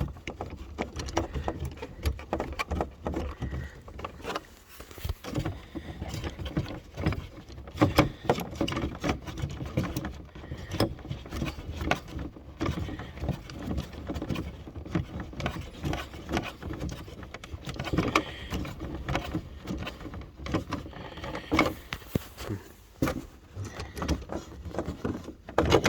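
A hand thread-insert setting tool being unscrewed and worked out of a freshly set threaded insert in a door handle: many irregular clicks, taps and scrapes of metal on metal over a low steady hum.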